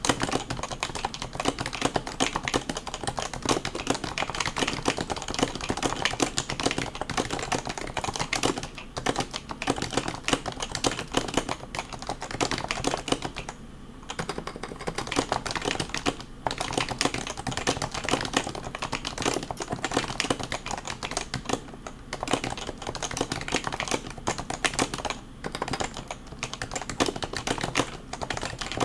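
Fast continuous typing on a stock HHKB Professional 2 keyboard with Topre switches: a rapid, dense stream of keystrokes, broken by a couple of brief pauses near the middle.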